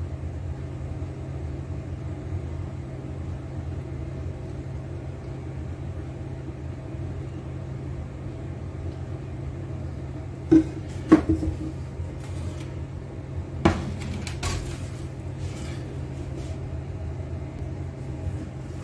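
A few light clinks and knocks of a utensil against a dish, bunched a little past halfway, over a steady low hum.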